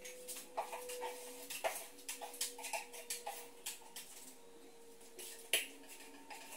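Irregular clicks, taps and knocks of hands and tools working on a plasterboard counter frame, with the strongest knocks about a second and a half in and near the end, over a faint steady hum.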